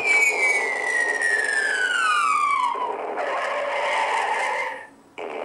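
A sound effect played from the phone app: a long falling whistle-like tone that glides steadily down for nearly three seconds and cuts off, followed by a second of noisy hiss that fades out.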